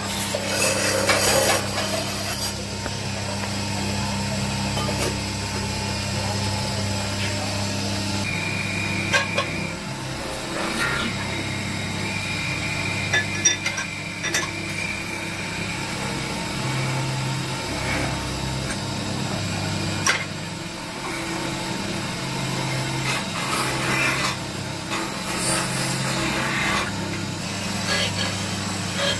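Metal lathe running steadily while a hand-held tool scrapes against the spinning copper workpiece, with scattered clicks and a thin high squeal at a few points.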